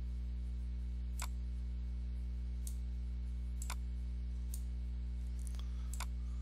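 Computer mouse clicking about six times at uneven intervals while parts are selected and dragged, over a steady low electrical hum.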